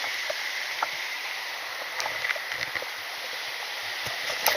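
Steady rush of a mountain stream's running water, with a few faint clicks.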